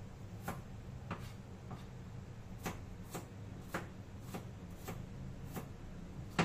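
A series of short, sharp clicks at an uneven pace, roughly two a second, over a steady low hum.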